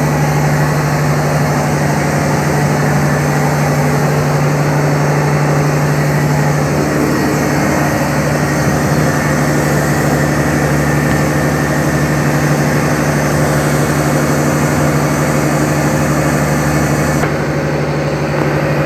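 A fishing boat's engine running steadily with a constant low hum.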